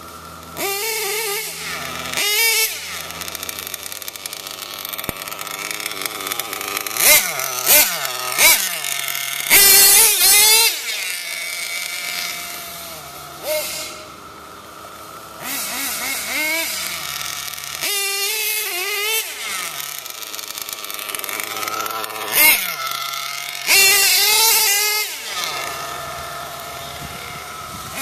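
Nitro RC truck's ERCM Picco .28 two-stroke glow engine with an ERCM Endbleed tuned pipe, revving up and down as it drives around. It runs loudest and highest in pitch a few times as the truck passes near, and drops back to a lower buzz in between.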